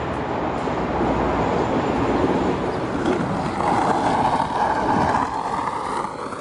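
InterCity 125 diesel express train rushing past at speed, a dense roar of engine and rails. After about three and a half seconds the sound changes to a steadier rolling noise of skateboard wheels on concrete.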